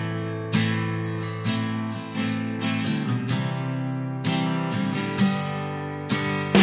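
Background music: strummed acoustic guitar chords, with a new strum roughly every half to one second.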